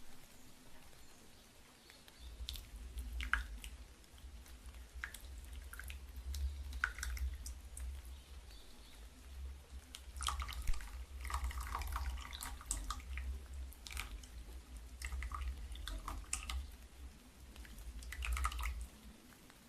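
Tea being poured for a second infusion: water trickling and dripping, with light clicks and clinks of porcelain teaware, thickest midway, over a low steady rumble that starts about two seconds in and stops near the end.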